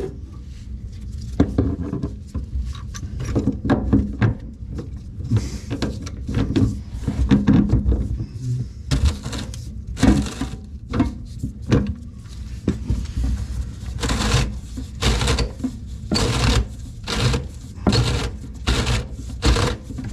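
Irregular clicking, knocking and scraping of hand tools against seized, rusted faucet fittings being worked loose under a sink, coming thicker and faster near the end.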